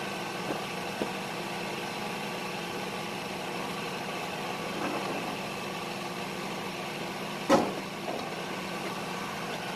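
An engine running steadily at idle, an even hum with a few light knocks and one sharper, louder knock about seven and a half seconds in.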